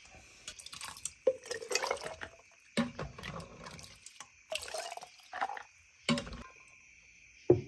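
Hot peanut-boiling liquid poured and dripping into canning jars in several short splashes, each starting with a knock, one pour rising slightly in pitch.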